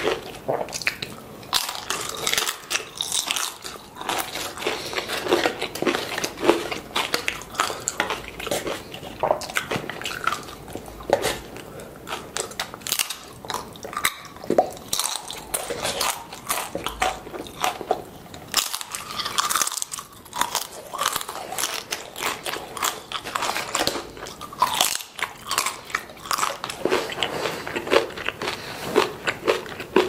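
Tortilla chips dipped in salsa being bitten and chewed: a dense, uneven run of crisp crunches and wet chewing sounds.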